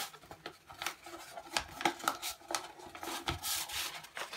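A sheet of printer paper rustling and crackling as it is rolled into a cone and handled, with irregular crinkles and clicks and a longer rustle about three and a half seconds in.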